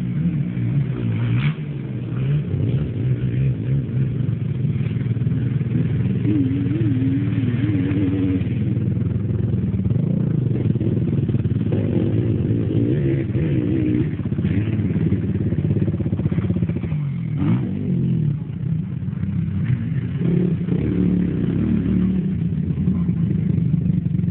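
Quad bike (ATV) engines running on a dirt track, the pitch rising and falling again and again as the throttle is opened and eased off.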